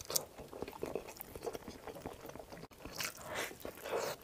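Close-miked chewing and biting of a glutinous-rice meat dumpling (zongzi) with pork belly. The mouth sounds and clicks come irregularly, with louder bites about three and four seconds in.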